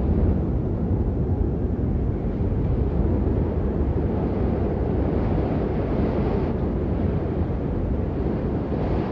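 Blizzard wind blowing steadily with a deep rush. A gust swells in the higher range just past the middle and drops away suddenly.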